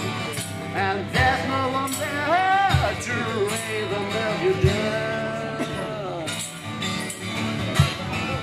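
Live acoustic guitar strummed while a man sings, with a cajon thumping out the beat and some jingling percussion.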